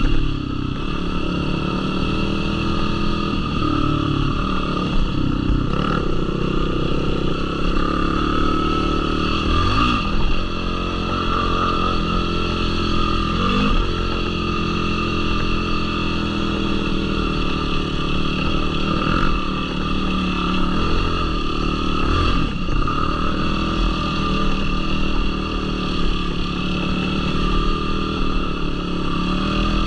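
Yamaha YFZ450R sport quad's single-cylinder four-stroke engine running on the trail, its pitch dipping and climbing again several times as the throttle comes off and back on.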